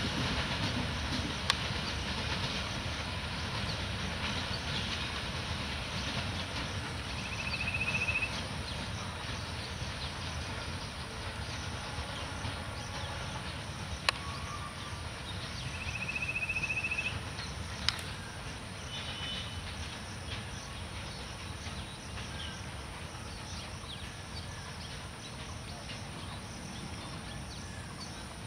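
Bangladesh Railway BTO oil tank freight train running away on the track, its wheels rumbling on the rails and slowly fading. A few sharp clicks and two short high-pitched tones stand out partway through.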